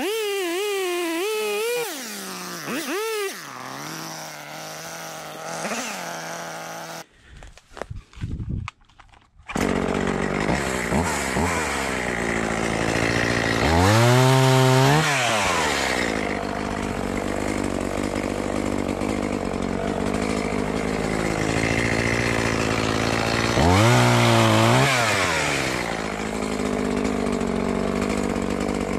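Echo CS-280TES two-stroke top-handle chainsaw cutting branches, its engine pitch rising and falling as it is revved. It breaks off for about two seconds a quarter of the way in, then runs steadily with two hard revs that climb and fall away.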